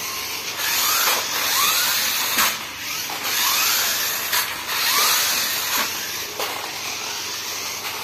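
Electric drive motors and gears of a HEROCAR 4x4 remote-control monster truck whirring hard, with a short rising whine about once a second as the throttle is pushed again and again.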